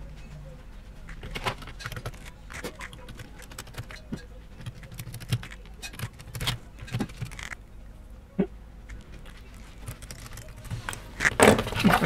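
Scattered small clicks and taps of a screwdriver turning screws and of hands working the plastic fan shroud of a graphics card, with louder handling noise near the end as the card is lifted.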